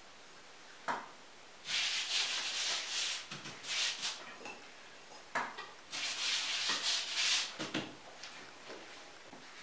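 A hand sweeping flour over a cloth spread on a table, preparing it for stretching strudel dough: several stretches of soft brushing, with a light tap about a second in.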